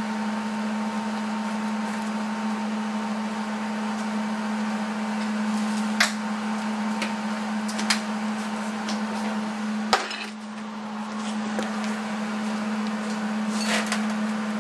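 MIG welder's wire-feed motor running with a steady hum as fresh wire is fed through the gun, with a few sharp clicks. The hum dips briefly about ten seconds in, then picks up again.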